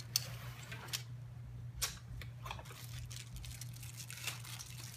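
Scattered small clicks and light rustles of things being handled, a few seconds apart, over a low steady hum.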